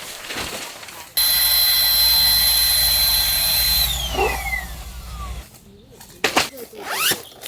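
Small electric motor running at a steady high speed, then winding down with a falling whine after it is switched off. Scattered clicks and handling knocks follow.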